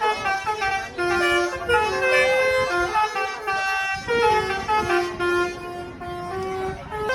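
Basuri eight-trumpet 'telolet' bus melody horn playing a tune: a run of short held notes stepping up and down in pitch, often several sounding together.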